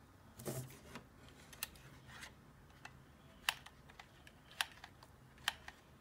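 Faint, irregular light clicks and taps, roughly one a second, with a brief rustle near the start: a hot glue gun and small ceramic pieces being handled while they are glued onto a lamp stem.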